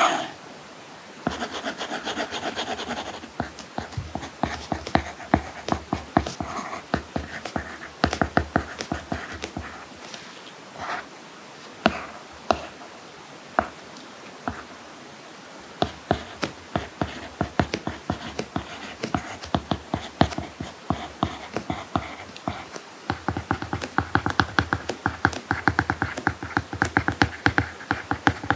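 Apple Pencil tip tapping and writing on an iPad Pro screen covered with a paper-like matte protector: scattered light taps and short scratchy strokes, then a quick run of handwriting strokes near the end.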